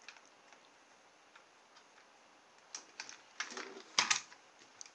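Light plastic clicks and taps from hands handling a toy RC car's plastic chassis. A scatter of clicks starts about three seconds in, the loudest a pair of clicks about four seconds in.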